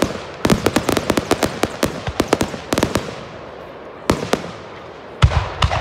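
Fireworks display: a rapid string of sharp crackling pops for about three seconds, then after a short lull a few separate louder bangs, the deepest near the end.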